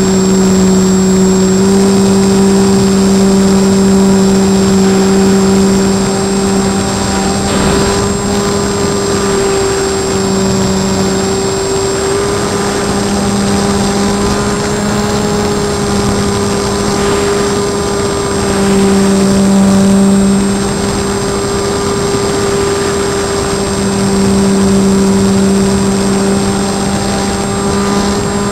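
Small RC biplane's motor and propeller running in flight, heard from a camera mounted on the plane: a steady hum with a thin high whine above it, swelling a little in loudness a few times as the throttle changes.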